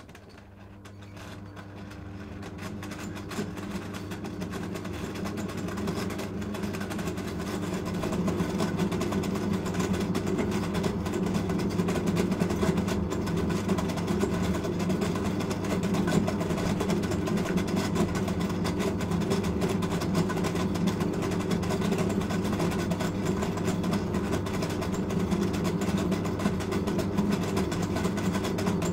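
Electric potter's wheel motor spinning a bowl: a steady mechanical hum that grows louder over the first several seconds as the wheel speeds up, then runs evenly.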